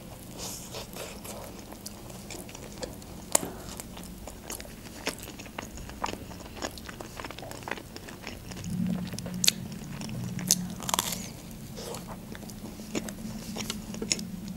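Close-up biting and chewing of a toasted club sandwich, with many short crackly crunches from the toasted bread and lettuce.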